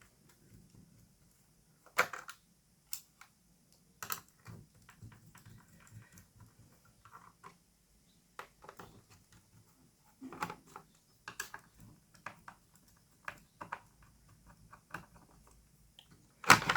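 Scattered clicks and light knocks of hands handling the plastic case and parts of a Dell Latitude E6430 laptop being taken apart, irregular in timing, with a sharper knock about two seconds in and the loudest one near the end.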